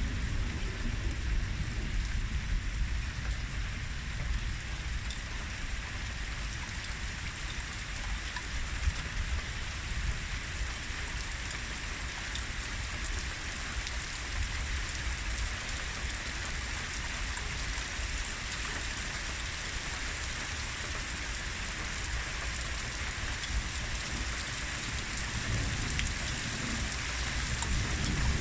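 Steady heavy rain falling. A low rumble comes at the start and again near the end.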